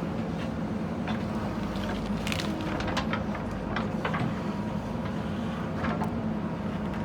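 JCB 3DX backhoe loader's diesel engine running steadily, with scattered sharp clicks and cracks on top, the clearest a little over two seconds in.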